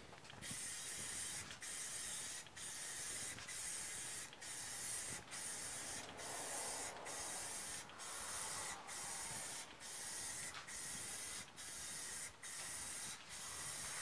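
Rust-Oleum aerosol spray paint can, worked with a clip-on trigger handle, spraying in a steady run of short hissing passes, about one a second, with brief breaks between them as the hood is coated.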